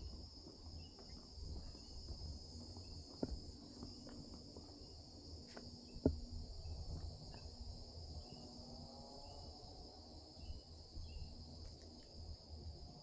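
Steady high insect chorus trilling continuously in the woods, over a low rumble. A few sharp knocks break through, the loudest about six seconds in.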